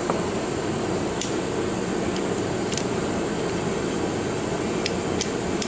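A steady mechanical hum, like a fan or air-conditioning unit, underlies a handful of small, sharp metallic clicks from a .22 revolver being handled just after its cylinder is refitted.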